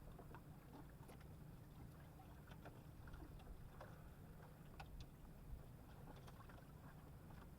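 Faint, steady low rumble of water, with scattered small clicks and ticks.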